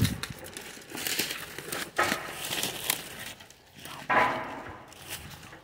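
Footsteps crunching through dry leaves and brush on the forest floor, about one step a second.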